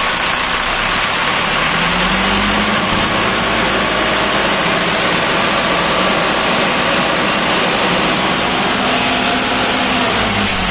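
Isuzu FRR bus's diesel engine running with its engine cover open, the engine speed rising about a second and a half in and held up as it is revved.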